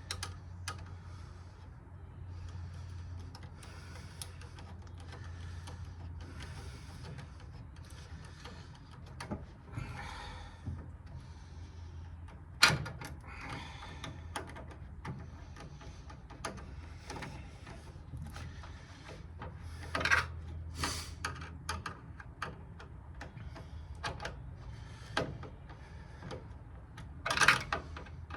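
Hands and tools working a hose clamp onto a radiator hose: intermittent rustling, scraping and clicks, with a sharp metallic click or knock three times, over a steady low hum.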